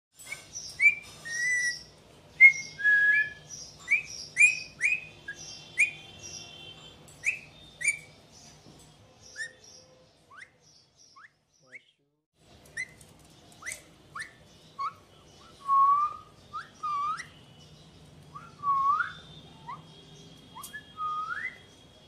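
Alexandrine parakeet whistling: a string of short, sharp whistled notes, then after a pause of about two seconds, longer whistles that bend upward in pitch.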